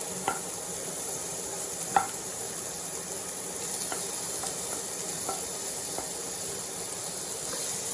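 Finely chopped onion sizzling in hot coconut oil in a pan, a steady hiss, with a few light taps of the stirring utensil against the pan, the sharpest about two seconds in.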